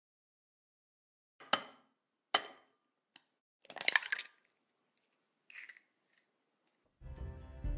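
A raw egg being cracked: two sharp taps of the shell against the bowl's rim about a second apart, then a short crackle as the thumbs prise the shell open and the egg drops in. Background music starts near the end.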